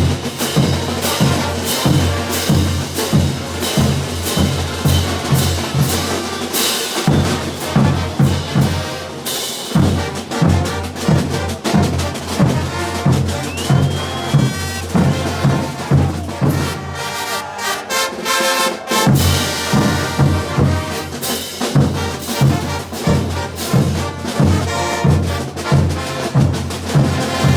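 Brass band playing a morenada, with brass over a steady beat of bass drum and cymbals. The low drums drop out briefly about two-thirds of the way through, then the beat returns.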